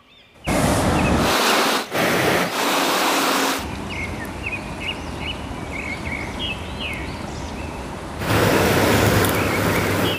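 Steady rush of a fast river in spring runoff. It is much louder in the first few seconds and again near the end, and dips to a softer hiss in the middle, where a small bird chirps repeatedly in short notes.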